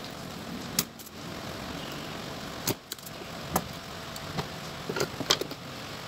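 Sharp clicks and snaps of a spring-loaded desoldering pump and soldering tools working a transistor's leads free of a circuit board, several in all and closest together near the end, over a steady background hum.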